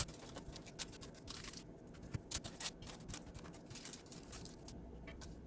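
Crushed plantain slices frying a second time in hot oil: quiet, irregular crackling and popping of the oil.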